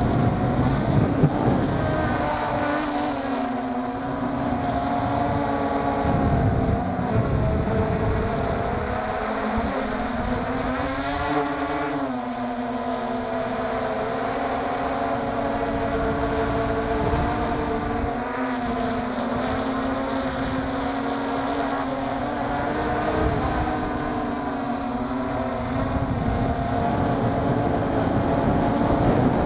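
MJX Bugs 3 quadcopter's brushless motors and propellers whining, heard from its onboard camera, the pitch rising and falling with the throttle and swinging sharply up and back down about ten seconds in. Wind rushes over the microphone underneath.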